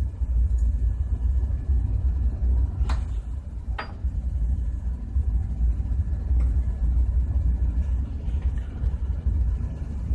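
A steady low background rumble, with two light metallic clicks about three and four seconds in as the steel plates of an air compressor discharge valve are handled.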